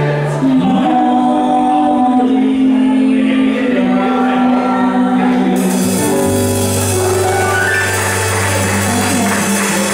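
Live Latin band playing a slow song, with voices singing long held notes over the band; a low sustained note comes in about six seconds in.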